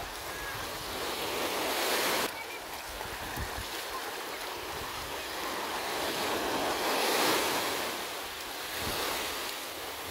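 Small sea waves washing up onto a sand beach, the surf swelling twice: once building to a sudden drop-off about two seconds in, and again near seven seconds.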